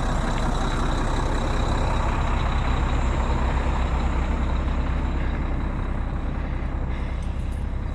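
Loaded grain semi truck's diesel engine idling steadily.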